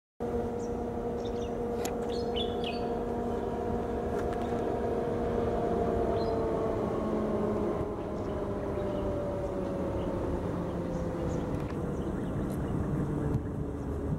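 WDM-3A diesel locomotive (ALCO V16 engine) approaching at speed at the head of an express train: a steady engine drone made of several held tones that slowly drop in pitch. A few bird chirps come in the first few seconds.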